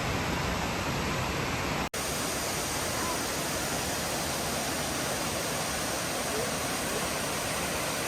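Waterfall rushing in a steady, dense roar of water, broken by an abrupt split-second dropout about two seconds in, after which the rushing carries on.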